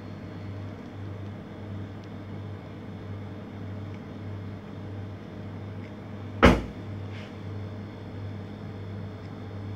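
A steady low machine hum with a gentle regular pulse under faint room noise, and one sharp loud thump about six and a half seconds in, followed by a much softer knock.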